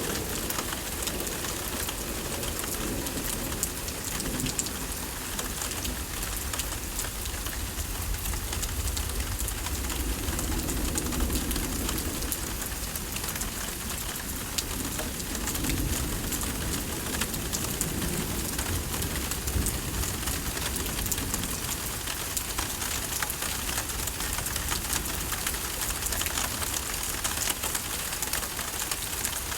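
Steady thunderstorm rain falling and pattering on surfaces. A low rumble swells and fades a few times in the first twenty seconds.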